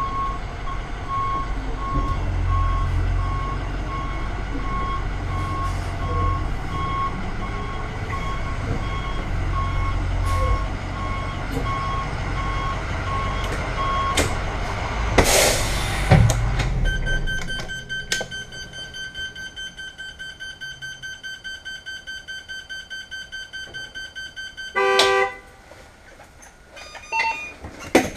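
International CE school bus with a VT365 V8 diesel running while its reversing alarm beeps steadily. About fifteen seconds in there is a loud burst of air as the air-brake parking brake is set, and the engine shuts down. An electronic alarm then pulses about twice a second, the bus's child check alarm, until it stops with a clatter near the end.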